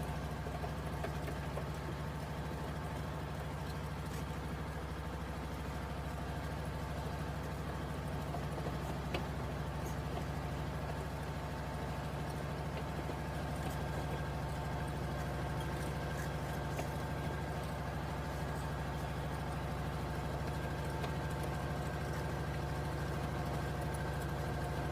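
A motor vehicle's engine running at a constant speed: a steady low hum with a few fixed tones above it, unchanging throughout.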